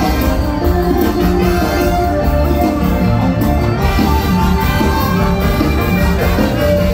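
Loud live mor lam band music playing on a concert stage, with a strong, steady bass line and held instrumental tones.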